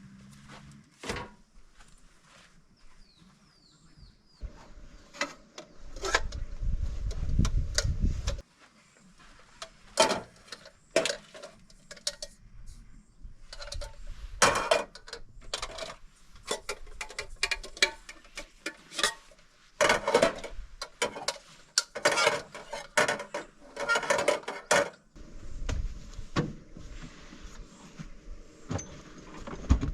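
Irregular clicks, knocks and light clinks of hard objects being handled, thickest in the middle. Low rumbling noise comes in twice, about six seconds in and again near the end.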